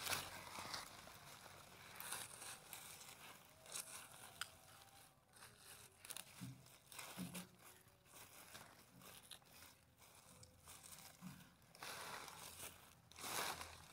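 Hands pulling apart dry leaf litter and roots in loose soil: faint, irregular rustling and crinkling, with a louder burst near the end.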